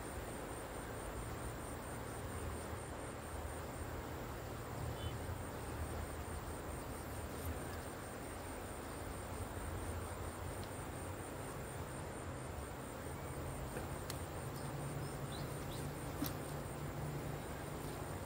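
Riverbank ambience: a continuous high, rapidly pulsing insect trill over a steady low rumble and hiss, with a few faint clicks.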